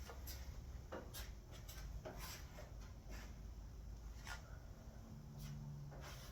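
Spatula scraping freshly mixed body filler (bog) across a car's steel guard panel, in short strokes about one a second, over a faint low hum.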